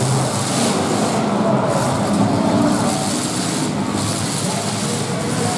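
Engines of several demolition derby cars running together, a loud, steady mix of motor noise.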